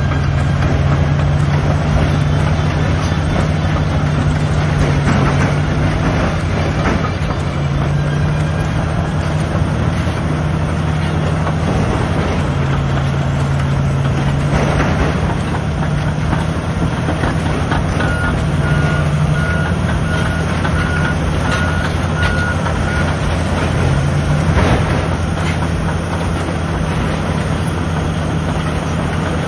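Large crawler bulldozers working: heavy diesel engines running under load, their note rising and falling, with scattered clanks of steel tracks and blades. A reversing alarm beeps steadily for about five seconds past the middle.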